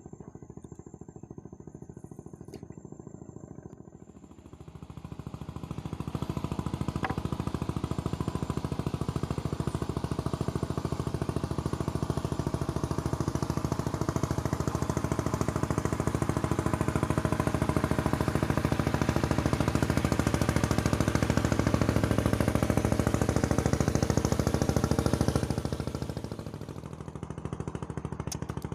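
A small engine running with a fast, rattling firing rhythm. It comes in about four seconds in, stays strong through the middle and drops off sharply near the end.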